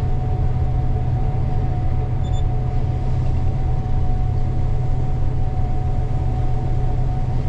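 Gleaner combine running steadily while harvesting, heard from inside its cab: a constant low drone with a steady higher whine over it.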